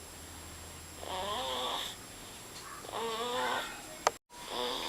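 Two-month-old baby snoring: squeaky, wavering breaths about every two seconds, three in all. A sharp click comes just after four seconds, followed by a brief moment of dead silence.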